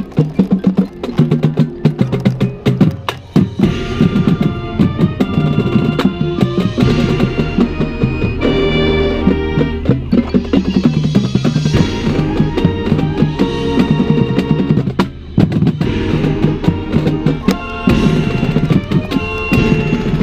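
A marching band playing on the field: drumline snare and bass drums beating steadily under saxophones and brass holding sustained chords.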